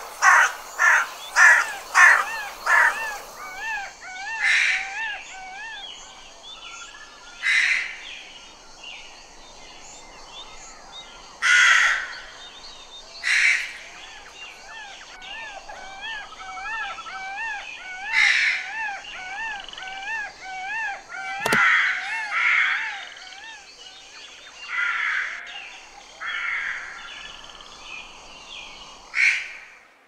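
Crows cawing: a quick run of about seven harsh caws at the start, then single and paired caws spaced through the rest. Softer, repeated wavering calls sound underneath, and there is one sharp click about two-thirds of the way through.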